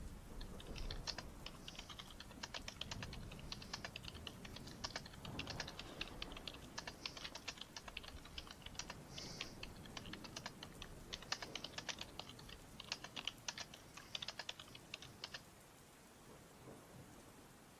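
Typing on a computer keyboard: quick runs of keystrokes with short pauses between them, stopping about fifteen seconds in.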